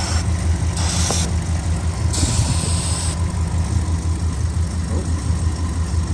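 Dodge 5.9L Magnum V8 idling with a steady pulse, misfiring, while two short hisses of aerosol brake parts cleaner are sprayed about a second in and again around two seconds in. The cleaner is being sprayed around the intake to test for a vacuum leak at the intake gasket: if the idle rises, there is a leak.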